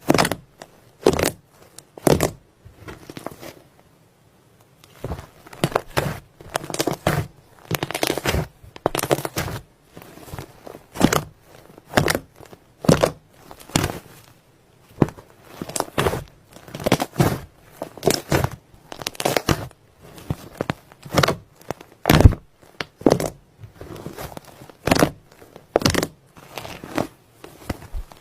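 Slime being worked and squished: a string of short, sticky crackling squelches, roughly one or two a second, some louder than others.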